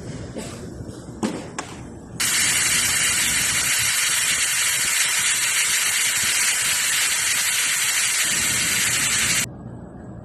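A few light knocks, then pressurised air hissing out in one loud, steady blast of about seven seconds that starts and cuts off abruptly.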